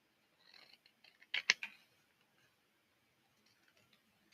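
Scissors cutting thin cardboard from a flattened toilet paper tube: a few soft cuts, then a quick cluster of crisp snips about a second and a half in.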